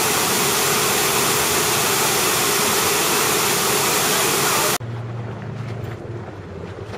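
Tall fountain jets falling back into the basin, a loud steady rush of water that cuts off suddenly about two-thirds of the way through. It gives way to a much quieter, steady low hum.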